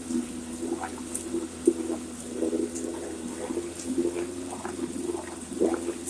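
Vintage Johnson 3 hp two-cylinder two-stroke outboard running in a water test tank, with a steady engine note and the exhaust gurgling through the water.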